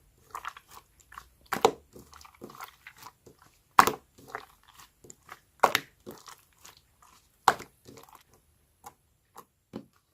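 Slime being squeezed and pressed by hand, giving sticky, wet pops and clicks. Four louder pops come about two seconds apart, with smaller crackles in between, and the pops grow sparser near the end.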